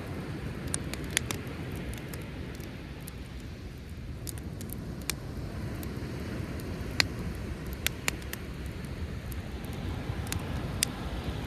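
Driftwood campfire crackling, with sharp pops coming at irregular intervals, over a steady low rumble of sea waves.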